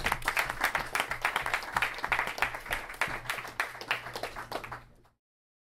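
Audience applauding, the claps thinning out and fading before the sound cuts off abruptly about five seconds in.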